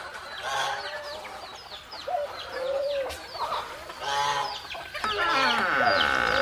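Chickens clucking, with many short high falling peeps over them, and a longer held call near the end.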